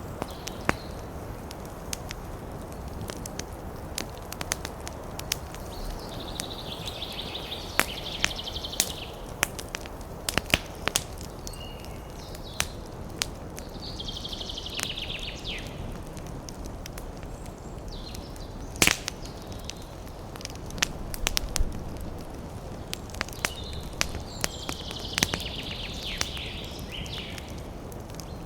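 Wood campfire crackling: a steady low hiss of burning with scattered sharp pops, one of them much louder about two-thirds of the way through. A bird trills high and fast three times in the background.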